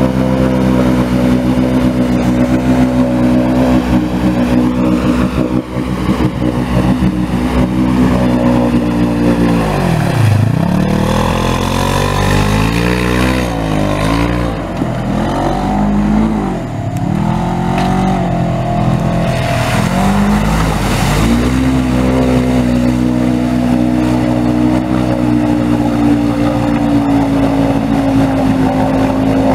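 Side-by-side UTV engine held at high revs as it drives through muddy water. About a third of the way in the revs drop and climb again several times, then settle back to a steady high rev.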